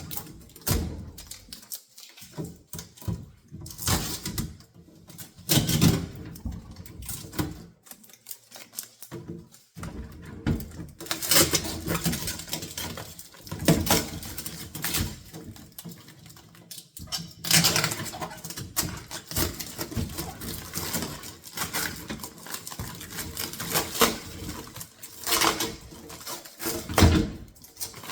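Irregular handling noise while a new refrigerator is unpacked: rustling packaging and a clatter of light clicks and knocks, in louder clusters every few seconds.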